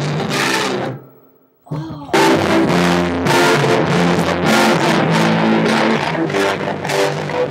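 Music with guitar and drums. It fades out about a second in, is nearly silent for a moment, then comes back louder and runs on.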